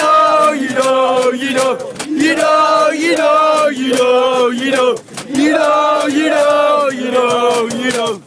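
A crowd of male football supporters chanting a terrace song loudly in unison inside a packed train carriage, the phrases broken by a short pause about five seconds in. A few sharp knocks cut through the singing.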